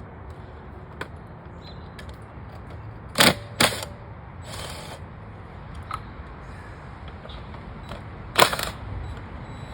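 Hand tools and motorcycle parts being handled: scattered clicks and knocks, with two sharp clacks about three seconds in and a loud clack near the end.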